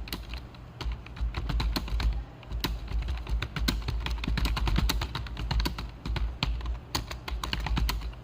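Fast typing on a computer keyboard: a dense, uneven run of key clicks, with brief pauses about two seconds in and about six seconds in, over a steady low hum.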